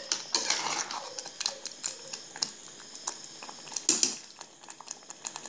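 Slotted steel ladle stirring thick mashed jackfruit curry in a steel pot, scraping and clinking against the pot in irregular clicks, with a louder clink about four seconds in.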